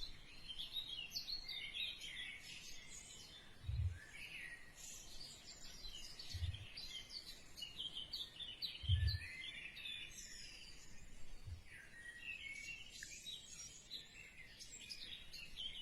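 Small birds chirping in quick, high twittering calls throughout, with a few soft low thumps about four, six and a half, and nine seconds in.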